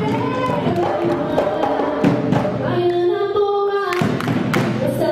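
Samba de roda played live: voices singing over hand percussion that keeps a steady rhythm, with a stretch of held sung notes about three seconds in.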